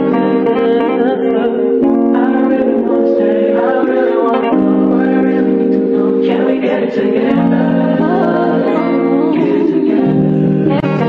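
Background music: held chords that change every second or two, with a singing voice over them.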